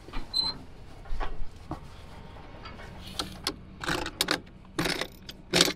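Footsteps through grass and stubble with knocks from handling equipment, a step about every 0.8 s in the second half, over a faint steady low hum. A light jingle of keys carried in hand.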